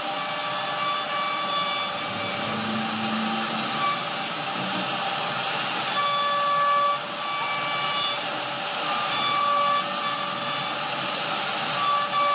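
CNC router spindle carving a relief pattern into a wooden panel: a steady cutting noise, with high whining tones that fade in and out as the bit moves through the wood.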